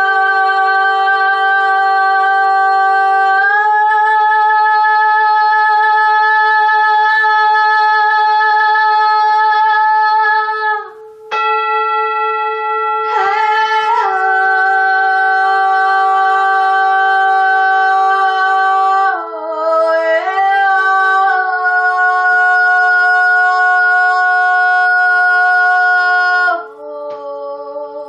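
A woman singing long held, wordless notes, moving to a new pitch every few seconds, over a steady drone tone that holds one pitch; the voice stops shortly before the end while the drone rings on.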